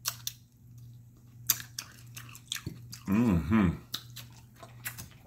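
Close-miked chewing and lip smacking of a mouthful of seafood, with many short wet clicks. About three seconds in, a brief wordless hummed "mmm" breaks in.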